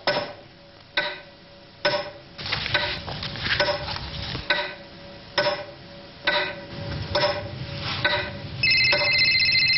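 Wall clock ticking a little under once a second, each tick ringing briefly. Near the end a mobile phone starts ringing with a loud, steady high electronic trill.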